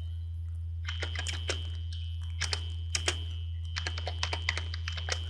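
Computer keyboard being typed on: short runs of quick key clicks starting about a second in, over a steady low hum.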